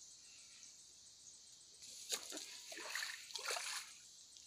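A short bout of splashing in shallow rice-paddy water, several quick splashes over about two seconds starting about two seconds in. Underneath runs a steady high hiss of insects.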